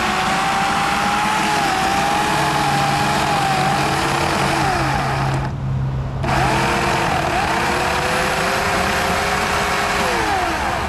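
An engine running, its pitch drifting up and down and sagging now and then, with a short dip about halfway through.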